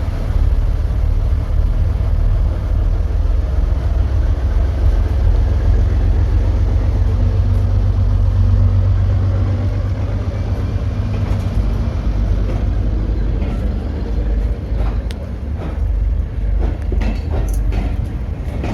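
Diesel locomotive running with a deep, steady rumble that is loudest about halfway through, followed by a run of sharp clicks and knocks over the last several seconds.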